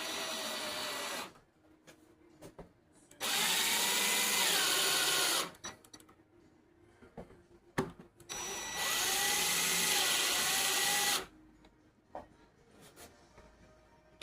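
Power drill driving screws into the pump housing, in three short runs of a whining motor whose pitch rises and falls. The screws are only being run down, not yet fully tightened. Faint clicks of handling sound between the runs.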